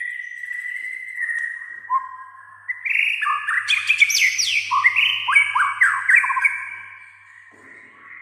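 White-rumped shama singing: held whistled notes at first, then from about three seconds in a loud, rapid run of down-sliding notes and varied phrases, dropping away near the end.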